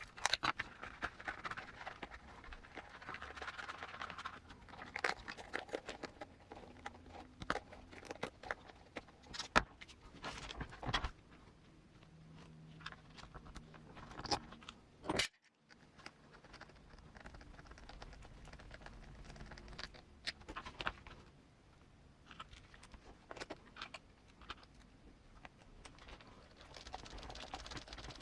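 Hands handling and assembling RC crawler wheels, tires and foam inserts: scattered small clicks, taps and rustling of plastic and rubber parts, with a sharper knock now and then.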